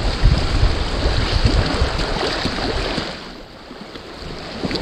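Wind buffeting the microphone over the wash of the sea on rocks. The wind noise eases off about three seconds in, leaving the quieter hiss of the water, then picks up again near the end.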